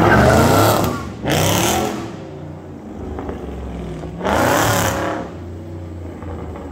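Dodge Charger Scat Pack's 6.4-litre HEMI V8 with the mufflers deleted, revved loud: two quick blips at the start and another about four seconds in, dropping back to a steady idle in between.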